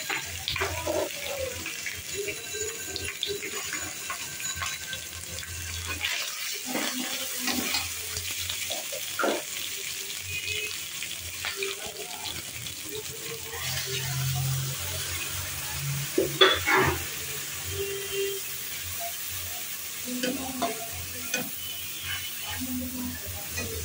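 Oil sizzling in a wok as sliced onions, spice powder and green chillies fry, with a spatula scraping and clicking against the pan. Later, water goes into the pan and the sizzle gives way to bubbling.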